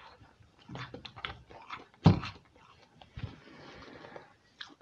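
Biting into a round red fruit and chewing it with the mouth closed, picked up close by a clip-on microphone: a string of short clicks and mouth noises, the loudest about two seconds in.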